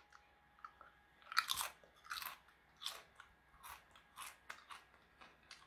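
A fried potato chip being bitten and chewed: a string of short, crisp crunches, the loudest about one and a half seconds in, then lighter crunches as it is chewed.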